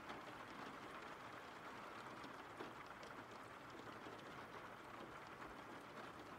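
Faint steady rain: a soft even hiss with scattered tiny drop ticks.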